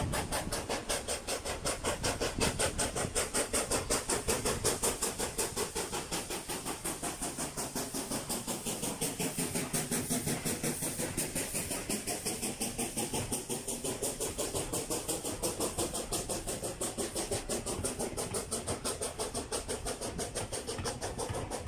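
USA S160 two-cylinder 2-8-0 steam locomotive passing close under steam, its exhaust beating in a fast, even rhythm that is loudest a few seconds in. Its coaches then roll past on the rails.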